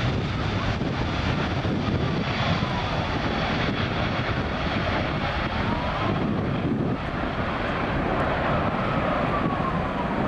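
Airliner engine noise, a loud steady rumble with no break. A faint wailing tone slides slowly down, back up, and down again over it.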